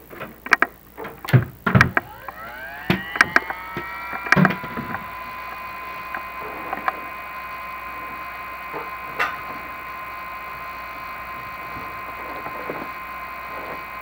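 A small electric motor spins up with a rising whine and then runs at a steady pitch, while the inspection camera rig knocks and clicks several times against the brick flue during the first few seconds as it is lowered.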